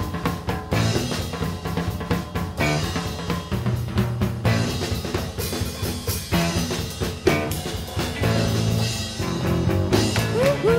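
Background music driven by a drum kit, with a steady beat of kick and snare over a bass line.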